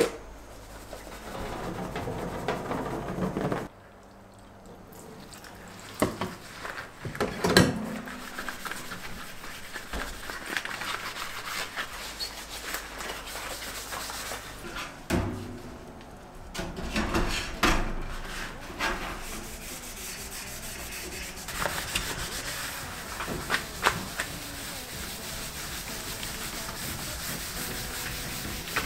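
Rubber-gloved hands scrubbing a stainless steel sink with a sponge and baking soda paste, a steady rubbing over the steel. Several sharp knocks and clatters from the wire sink rack being handled break in along the way.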